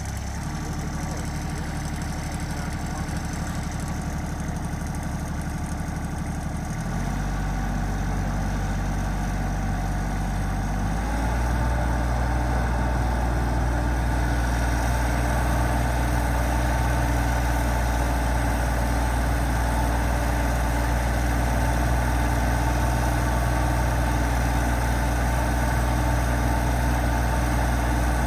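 Excavator engine running steadily, its note stepping up twice, about seven and eleven seconds in, as the machine is put to work, then holding at the higher level.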